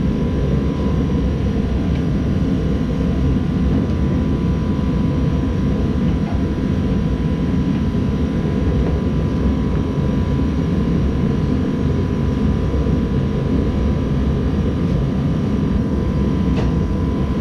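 A garage blower fan running steadily, giving a low rushing noise with a faint thin whine above it.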